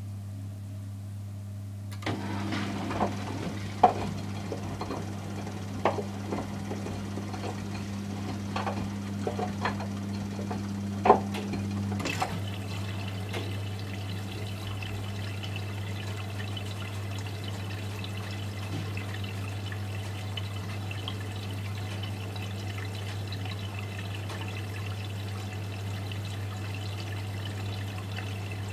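Miele Softtronic W 435 washing machine running with a steady low hum. About two seconds in, a second hum and a string of sharp knocks and splashes start. From about twelve seconds, water runs steadily into the machine.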